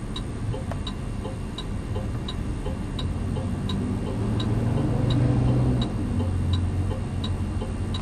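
Steady ticking of a car's turn-signal indicator, about one click every 0.7 s, over a low rumble that swells in the middle.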